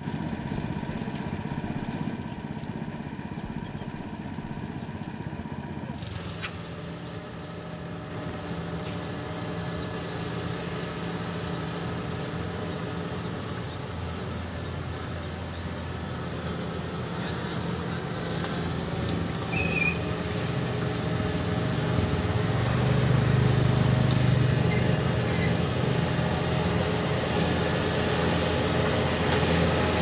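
Kubota DC70 Plus combine harvester's diesel engine running steadily as the machine travels, growing louder as it approaches from about two-thirds of the way through.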